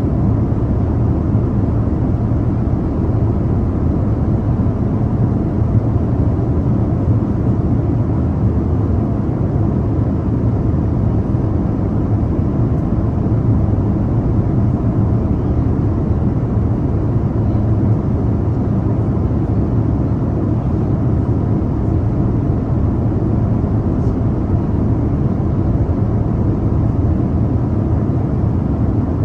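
Airliner cabin noise in flight: a steady low rumble of engine and airflow, unchanging throughout.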